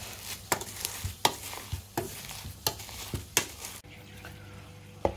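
Wooden spoon knocking and scraping in a container as it crushes raw lingonberries with sugar by hand. The strokes come roughly once or twice a second and stop about four seconds in.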